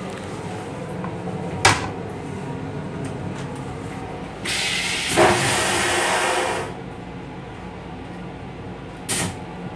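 Vacuum toilet of an M8 railcar flushing: a sharp click, then a loud rushing whoosh of about two seconds with a thud partway through as the bowl empties, and a short hiss near the end, over a steady low rumble.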